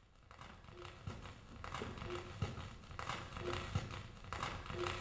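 A slow, repeating pulse: a short low note followed by a low thud, about once every second and a half, over a hiss that swells and fades.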